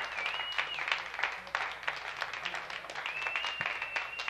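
Club crowd applauding, with two long, high whistles over the clapping, one near the start and one about three seconds in.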